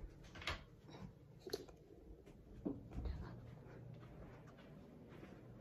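Faint towel rustling and handling noise, with a few soft clicks and a low bump a little after halfway.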